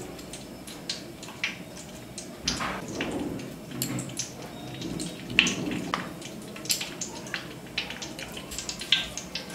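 Ghee heating in hot mustard oil in a kadai, sizzling with scattered pops and crackles.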